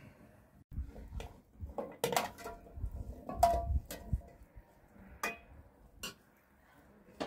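Dishes and pots being handled: a series of knocks and clinks, some with a short metallic ring, the loudest about three and a half seconds in.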